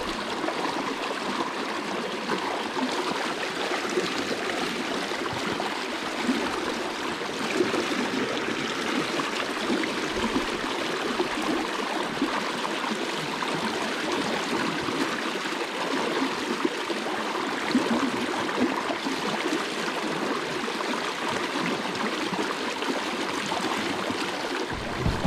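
Creek water rushing steadily over and around a log jam, a constant splashing flow.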